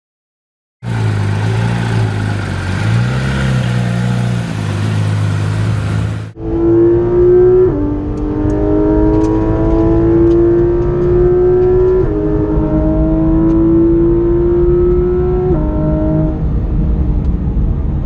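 Porsche 911 GT3 RS's naturally aspirated 4.0-litre flat-six, heard from inside the cabin, accelerating hard: the note climbs steadily in pitch and drops suddenly at three quick PDK upshifts, then eases near the end. Before it, after a moment of silence, a steady low engine hum with a brief rise in pitch.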